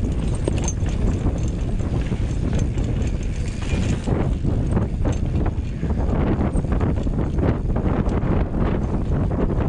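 Banshee Spitfire full-suspension mountain bike ridden over rocky singletrack: a steady rumble of tyres and wind on the microphone, with rapid clattering knocks and rattles of the chain and frame as the wheels hit rocks.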